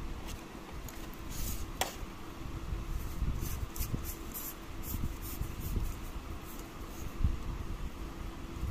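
A smart bulb's metal screw base being twisted into a plastic screw-to-bayonet adapter: a run of small scraping clicks from the threads, over low handling rumble.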